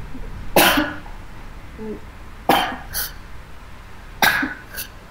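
A woman coughing three times, about two seconds apart, each cough followed by a smaller one.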